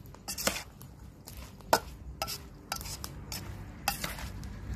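Metal spoon stirring small whole fish through a wet herb and chilli paste in a stainless steel bowl: soft scraping with several sharp clinks of spoon on bowl, the loudest a little under two seconds in.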